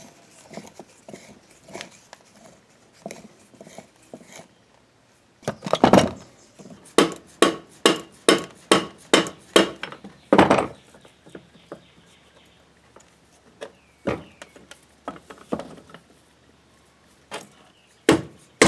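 Hammer blows on the cast-iron governor of an old oilfield engine, knocking the shaft assembly loose: one heavy cluster of knocks, then a run of about nine sharp strikes at roughly two a second, ending in a harder blow. Lighter metal clicks and knocks from handling the parts come before and after.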